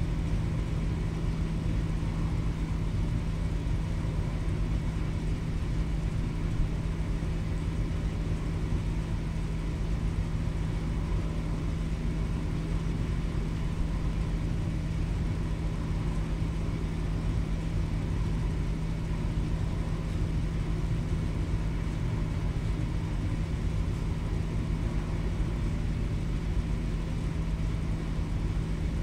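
Steady low drone of a ferry's engines and machinery heard on board while under way: a constant hum with rumble beneath and a faint even hiss above, unchanging throughout.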